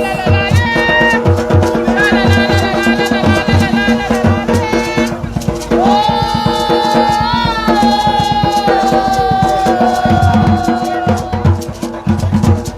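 Music with a steady drum beat and shaker percussion under a sung melody, with one long held note in the middle.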